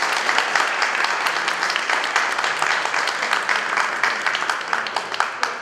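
Audience applauding, many hands clapping together, beginning to die away near the end.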